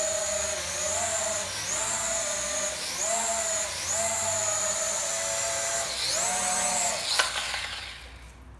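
HJ28 toy quadcopter's four small motors and propellers whining steadily and high, the pitch dipping and recovering several times as the throttle is eased for landing. About seven seconds in, a sharp knock as it touches down, and the whine dies away.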